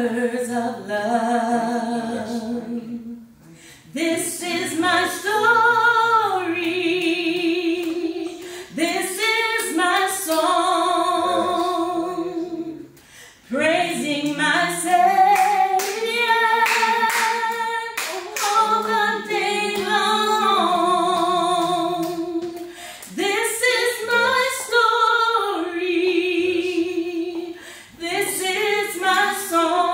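A woman singing solo and unaccompanied, in long phrases with held notes wavering in vibrato, with short breaks for breath between phrases.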